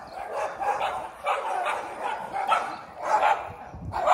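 Dog barking in a rapid, repeated run, two or three barks a second, at a house gate.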